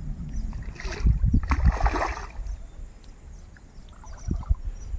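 A hooked fish splashing at the water's surface as it is played on a spinning rod, with two bursts of splashing in the first couple of seconds, over a low rumble of wind on the microphone.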